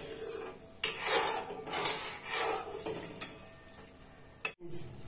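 A steel ladle knocks sharply against a metal kadai, then scrapes around the pan stirring the thin sugar syrup as it cooks down. There is a lighter tap about three seconds in and another near the end.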